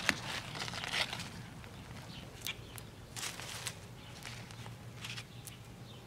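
Hands pressing and scraping loose garden soil and dry leaves: scattered rustling and scratching, with a sharp tap right at the start.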